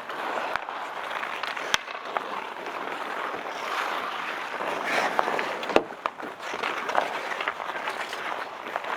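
Outdoor ice hockey game ambience: a steady wash of crowd noise with a few sharp cracks of stick and puck, the loudest just before six seconds in.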